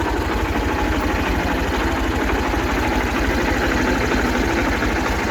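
Tractor engine running at a steady speed with a low, even throb, powering a maize sheller that strips corn kernels from the cobs.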